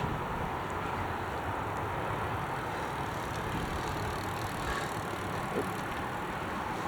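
Wind buffeting the microphone in gusts over a steady, distant airliner jet engine noise at the airport.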